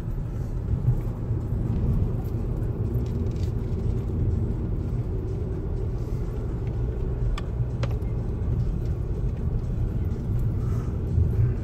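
Car driving on a winding country road, heard inside the cabin: a steady low rumble of engine and tyres. Two faint clicks come a little past halfway.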